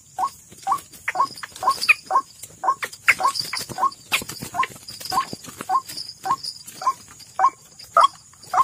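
White-breasted waterhen (ruak-ruak) calling: short, harsh notes repeated steadily at about two a second.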